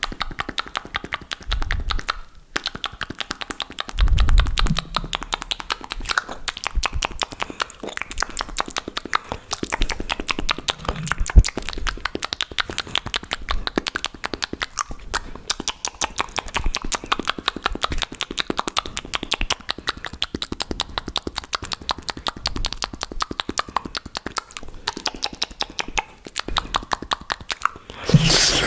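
Fast, aggressive ASMR mouth sounds: a dense run of rapid wet clicks and smacks from tongue and lips, many a second, with a short pause about two seconds in.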